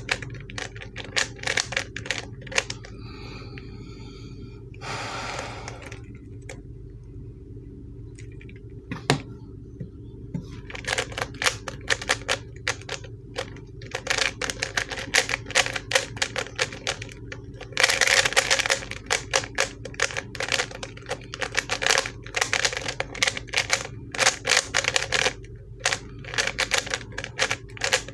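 A stiff-turning ShengShou 3x3 speed cube being turned fast, its plastic layers clacking in dense runs of clicks. The clicking pauses for several seconds early on, with a single knock about nine seconds in, then runs on continuously once the timed solve starts.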